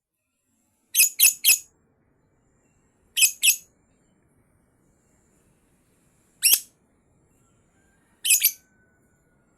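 Lovebird giving short, harsh, high-pitched calls in quick clusters: three together, then two, a single one, and two more, with silent gaps between.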